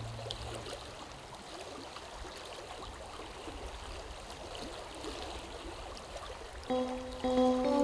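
Brook water flowing steadily. A low held tone dies away just after the start, and soft music with long held notes comes in near the end.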